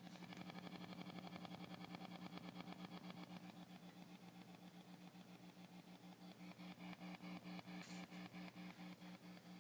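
Fender '68 Custom Deluxe Reverb tube amplifier hissing and humming faintly with both channel volumes off and no guitar plugged in, the noise pulsing rapidly at about nine beats a second: unwanted noise from the amp itself.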